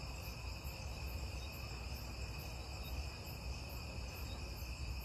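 Night insects, crickets among them, chirring steadily in several high bands, with a faint high chirp pulsing about twice a second, over a low steady rumble.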